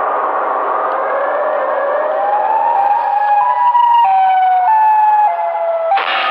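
Siren Head's distorted siren wail: a rough, noisy wail that climbs in pitch, then settles into a string of held tones stepping down and up. It breaks off abruptly near the end as a different sound cuts in.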